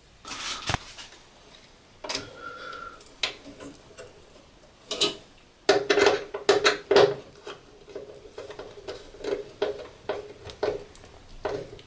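Irregular light clicks, taps and handling noise of a wire being fitted to a screw terminal on a solid state relay and the terminal screw tightened with a screwdriver.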